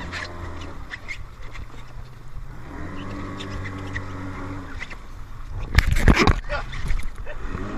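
Inflatable rescue boat's outboard motor idling with a steady hum, among small knocks and splashes as the crew drag a patient aboard. About six seconds in, a loud brief scuffing rush as a wetsuit brushes against the camera.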